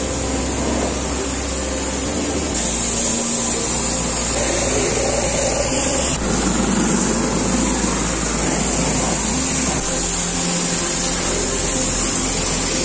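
Steam pressure washer running steadily while its jet hisses against the underside, wheel well and suspension parts of a raised pickup. The sound shifts abruptly a few times as the spraying moves from spot to spot.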